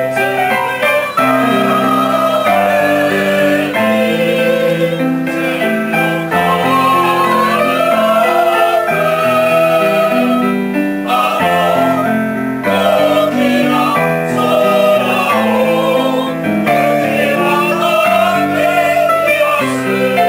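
A mixed choir of women's and men's voices singing together in parts, the melody rising and falling in held phrases.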